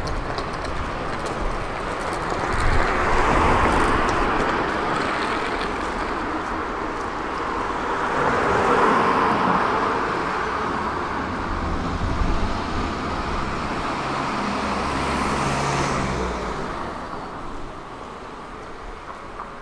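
Road traffic passing on a city street: vehicles go by one after another, each swelling up and fading away, the loudest a few seconds in and again about nine seconds in. Another vehicle passes with a rising hiss near the end before the noise dies down.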